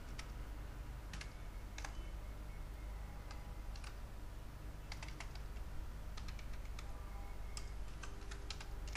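Computer keyboard keys tapped in short, irregular runs of typing, faint over a steady low hum.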